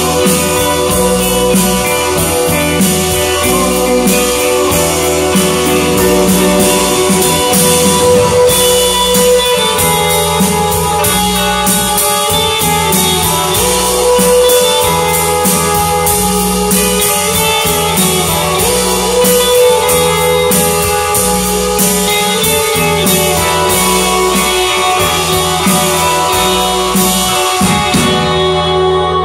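Rock band playing an instrumental stretch, guitar to the fore over bass and drums with a steady beat. The drums and cymbals stop about a second before the end as the song closes.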